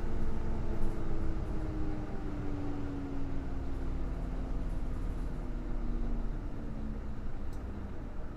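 Hino BJG-HU8JMFP hybrid city bus running: a heavy low drivetrain rumble under a whine that falls slowly and steadily in pitch over several seconds.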